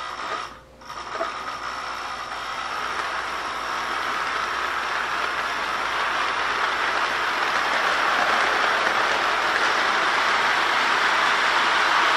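Toy electric train running on model train track: a steady rolling rattle of wheels on rails that grows louder over the first several seconds and then holds.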